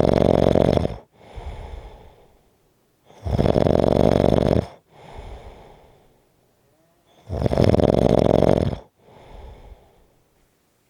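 A sleeper snoring rhythmically: three loud snores about four seconds apart, each followed by a quieter breath.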